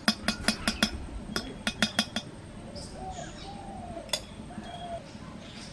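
Metal spoon clinking rapidly against the side of a metal kadai as ghee is knocked off it into the oil, about a dozen sharp clinks in the first two seconds, then one more clink about four seconds in.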